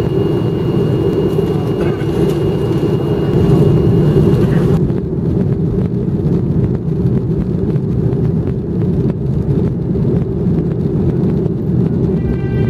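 Boeing 737 airliner's jet engines on the runway, a loud steady rumble with a thin high whine. About five seconds in, the sound turns duller and muffled, the engines now heard from inside the cabin during the takeoff roll.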